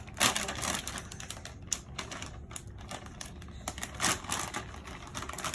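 Packaging crinkling and rustling as it is opened by hand: an uneven run of quick clicks and crackles, busiest just after the start and again around four seconds in.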